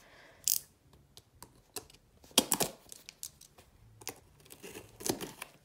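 Hands handling a cardboard shipping box: scattered light taps, clicks and scrapes on the cardboard. There is a louder cluster of scrapes about two and a half seconds in, and another about five seconds in.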